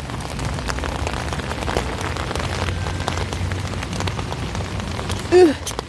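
Steady rain falling, a constant hiss scattered with small taps and clicks of drops and handling. A brief vocal sound near the end.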